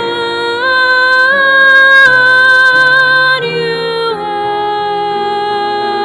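A woman soloist singing a slow carol melody in long held notes with vibrato, over instrumental accompaniment; the line steps up twice early on and drops to a lower note about two-thirds of the way through.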